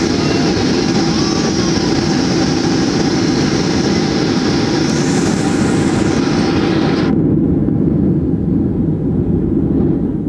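Cabin noise of a Boeing 737-800 with CFM56-7B engines rolling out on the runway after touchdown: a loud, steady roar of engines and rolling. About five seconds in the hiss swells briefly, and about seven seconds in the high hiss cuts off abruptly, leaving a low rumble.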